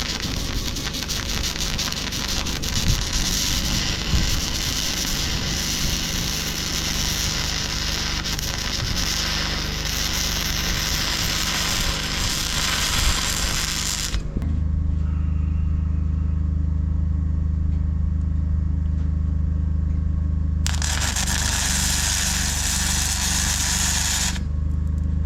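MIG welder arcing with a steady crackle for about fourteen seconds, the wire feed set a little high, then stopping suddenly. A steady low machine hum follows, broken by a second weld of about four seconds.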